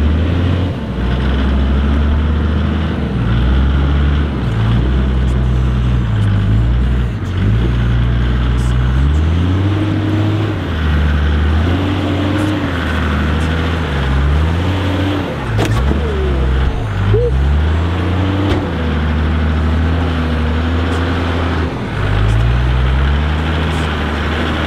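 Four-wheel-drive engine working hard at low revs as the vehicle crawls up a steep rocky climb, the revs rising and falling over and over as the driver feeds throttle over the ledges.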